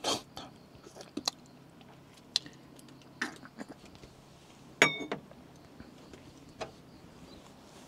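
Quiet tabletop handling while eating and drinking: scattered small clicks and taps, and one sharper knock about five seconds in that rings briefly.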